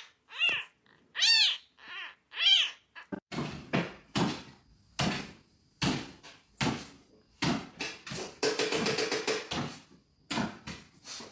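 A cat meowing three times in the first few seconds, each call rising and falling in pitch. A string of short, noisy bursts follows.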